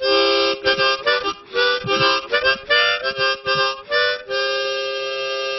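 Short instrumental interlude on a reed-toned wind instrument: a run of quick melodic notes, then a held two-note chord that starts to fade near the end.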